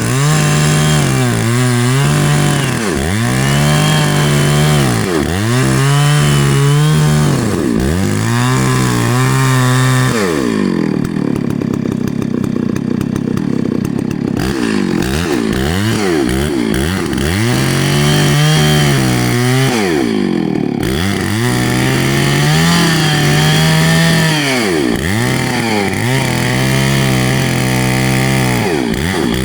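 Chainsaw cutting into a tree. The engine's pitch sags under load and climbs back again and again, roughly every two seconds, with a steadier stretch near the middle.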